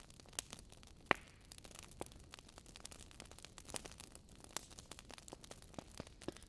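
Wood fire crackling in a fireplace: irregular sharp pops and snaps over a faint hiss, the loudest pop about a second in.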